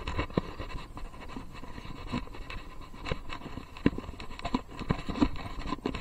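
A horse walking on a grassy trail, its hoof falls heard as soft, irregular knocks, mixed with scraping and rubbing from a loose chest-mounted camera.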